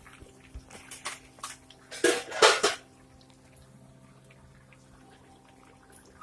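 Cooking utensil clinking against a metal pot: a few light taps, then a louder clatter and scrape about two seconds in. A steady low hum runs underneath.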